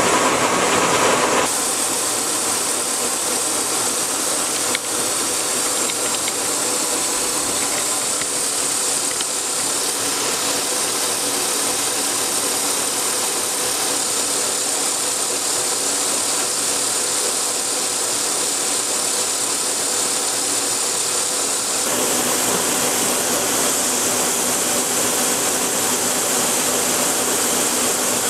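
Kearney & Trecker knee mill running under power, a face mill cutting across the top of a steel railroad rail: a steady whir of spindle and gearing with the hiss of the cutter taking chips. The tone fills out a little about three-quarters of the way through.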